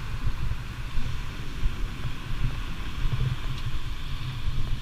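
Wind buffeting the camera microphone with an uneven low rumble, over a steady hiss of sea breeze and small surf.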